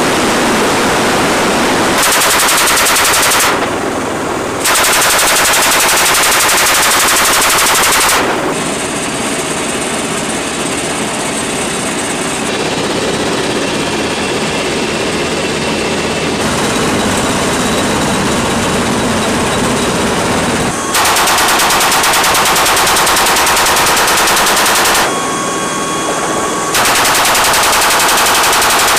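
M240 7.62 mm belt-fed machine gun firing long bursts of rapid, even shots from the open ramp of an MV-22B Osprey in flight. There are four bursts: a short one about two seconds in, a longer one of some three seconds soon after, and two more from about twenty-one seconds on. Between bursts a steady rush of aircraft engine and wind noise fills the gaps.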